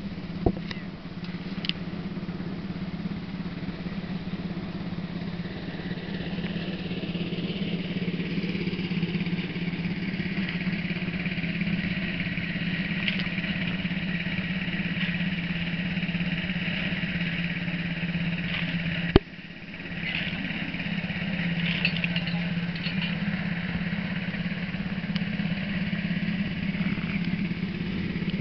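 An engine running steadily, with a sharp knock about two-thirds of the way through.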